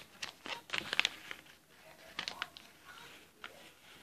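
Folded paper model being handled and folded in half: scattered short rustles and crinkles of paper.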